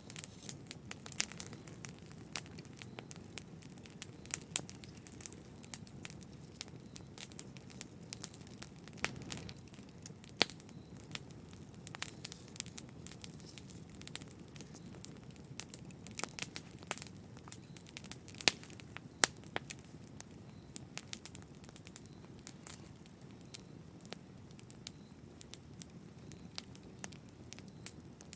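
Wood fire crackling in a fireplace: frequent irregular sharp pops and snaps over a steady low rumble of the burning logs.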